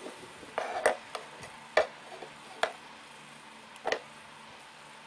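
A few sharp plastic taps and knocks, about a second apart, as the Mi Band 2 tracker pod, strap and charging cable are handled and set down on the cardboard box.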